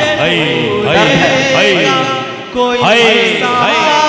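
A man singing a line of an Urdu ghazal in tarannum style, drawing the vowel out in a long melismatic phrase with quick rising and falling ornaments. About two and a half seconds in it settles onto steady held notes.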